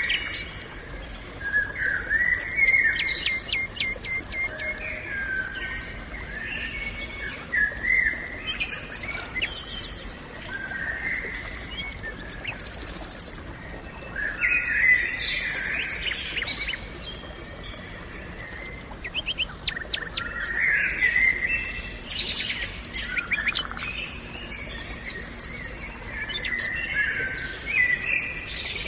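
Several songbirds singing in a forest: overlapping chirps, quick trills and warbled phrases that come in clusters, over a faint background hush.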